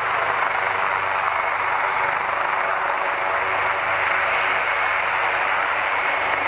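Jet airliner engines running, a loud, steady rushing noise with a faint whine in it.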